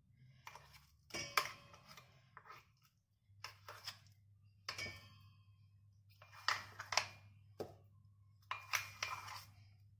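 A metal spoon scraping and knocking against a steel mixer-grinder jar as thick dal paste is emptied into a steel bowl: irregular clinks and knocks, some with a short metallic ring. A faint low hum comes in about a third of the way through.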